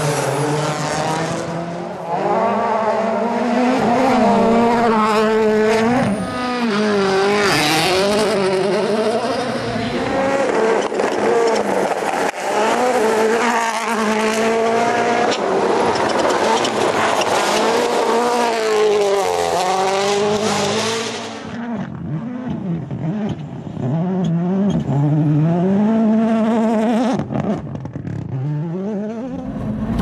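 Rally cars' turbocharged engines at full throttle, the pitch climbing and dropping sharply again and again as they shift through the gears. About two-thirds of the way through the sound changes to a more muffled recording of an engine still revving up and down.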